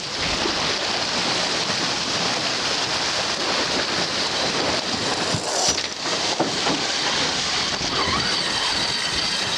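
Steady rush of wind buffeting the microphone and water hissing past the hull of a racing sailboat under way.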